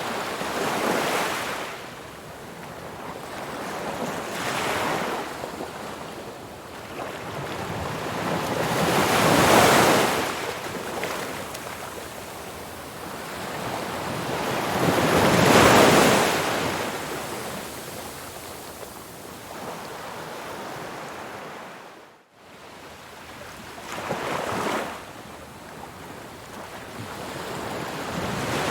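Ocean surf washing onto the shore, each wave swelling into a loud hissing rush and falling away every four to six seconds. About three-quarters through, the sound cuts out for a split second.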